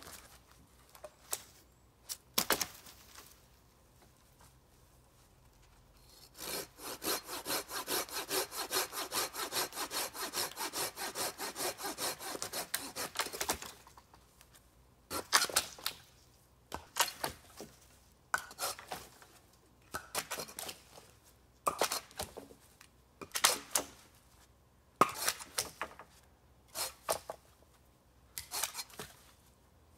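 Hand saw cutting through dry dead wood in quick, even back-and-forth strokes for about seven seconds. After it comes a string of separate sharp wooden cracks and knocks, one every second or two, as the firewood is worked.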